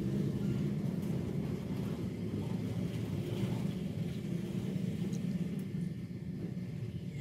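Large hand-turned potter's wheel, with no motor, spinning with a steady low rumble while a small clay pot is shaped on it.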